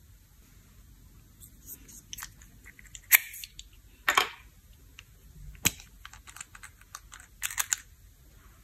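Small glass nail polish bottles and their plastic caps being handled and set down: scattered clicks and knocks, the sharpest about three seconds in, a brief rasp about four seconds in, and a quick run of clicks near the end as a cap is unscrewed.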